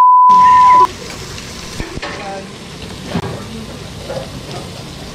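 A loud single-pitch censor bleep for the first second, then meat sizzling in a hot frying pan with a few light clicks and knocks of tongs and scissors against it.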